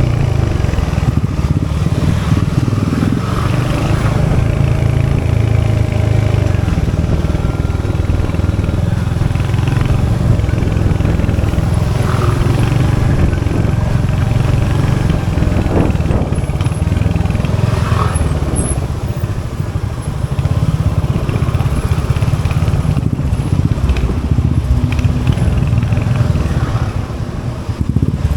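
Royal Enfield Hunter 350's 349cc single-cylinder J-series engine running with a steady, low exhaust note, with a couple of short clicks about two-thirds of the way in.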